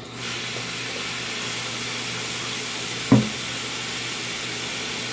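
Bathroom sink faucet running steadily, a continuous hiss of water, with a single knock about three seconds in.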